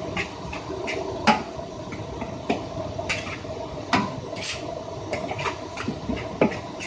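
Metal spatula scraping and turning fried rice in a wok, short strokes about three a second, with a few sharp knocks on the pan, over a steady hum.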